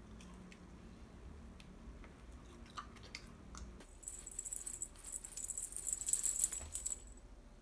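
A cat's metallic tinsel toy crinkles and jingles for about three seconds as the cat bats and bites at it. This starts about four seconds in, after a few faint scattered clicks.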